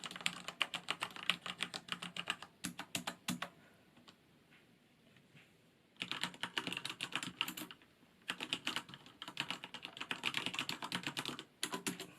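Fast typing on a Corsair K68 mechanical keyboard with Cherry MX Red linear switches: quick runs of keystrokes, with a pause of about two seconds near the middle and a brief break about eight seconds in. The switches sit under a silicone splash and dust cover, which the owner thinks makes the sound a little more subdued.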